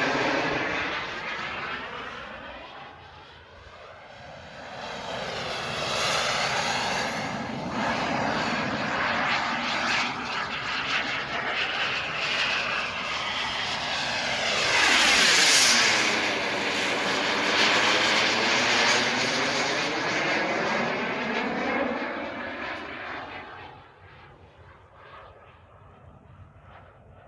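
Model jet turbine (KingTech) of an RC Rafale flying past in repeated passes, its whine swelling and fading as it comes and goes. The closest, loudest pass is about halfway through, with a high whistle that drops in pitch as it goes by. Near the end the sound fades off into the distance.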